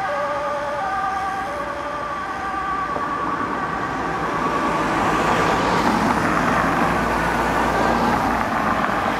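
Dutch fire engine's two-tone siren alternating between a low and a high pitch, fading over the first few seconds as the truck drives away on an urgent call. From about five seconds in, the engine and tyre noise of a passing vehicle swells with a low rumble.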